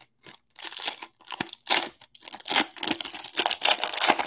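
Foil wrapper of a 2020 Donruss football card pack being torn open and crinkled by hand, a run of irregular crackles and rips.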